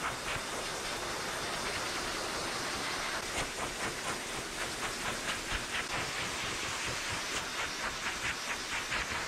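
Pet grooming dryer blowing a strong stream of air through its hose into a long-haired cat's coat: a steady rushing hiss that begins to pulse quickly about three seconds in.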